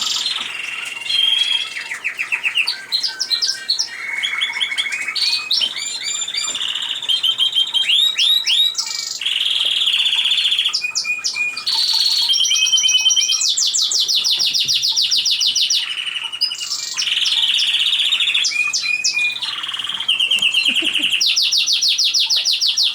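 Canaries singing continuously: long, fast trills and rolls of rapidly repeated notes, one phrase after another with hardly a break.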